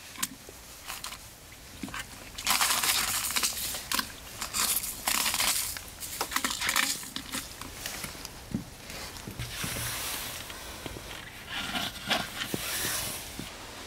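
Bursts of crinkling and rustling with small clicks and splashes as rubber-gloved hands drop charcoal and dried red chilies into brine in an earthenware jar. A sharper click comes near the end as a glass lid is set on the jar.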